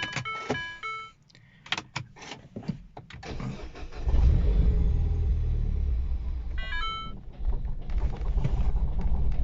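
Dashboard warning chimes, then the starter cranks and the R56 Mini Cooper S's 1.6-litre turbocharged four-cylinder catches about three seconds in and runs unevenly, with another chime partway through. The engine stutters, a fuelling problem the owner puts down to the fuel tank and fuel filter having just been out.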